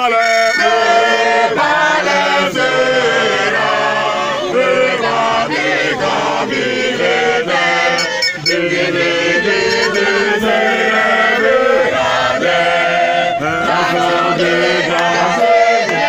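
Church choir singing together, several voices at once, unbroken.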